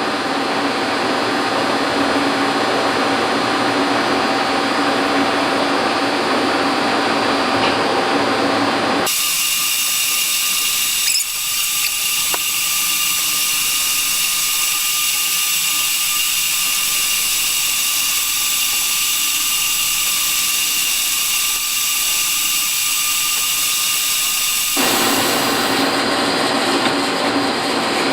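Steady, loud running of an electric power machine or power tool, a continuous whine with a few fixed tones. Its sound changes abruptly about a third of the way through and changes back near the end.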